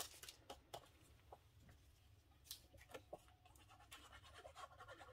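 Near silence with scattered faint scratches and light taps of cardstock being handled and pressed into place.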